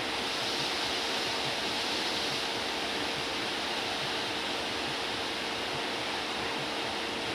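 Steady hiss of background noise with a faint steady hum, and no distinct clicks or knocks.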